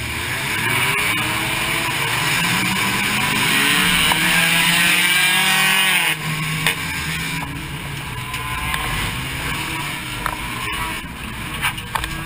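Race car engine heard from inside the cabin, revving hard with its pitch climbing for about six seconds, then cutting off abruptly to a lower, quieter running note with a few sharp knocks and clunks near the end.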